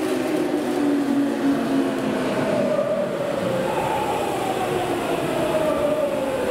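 Tokyu electric commuter train with a steady rumble and a motor whine that falls in pitch; a second, higher whine starts about three and a half seconds in and slides downward.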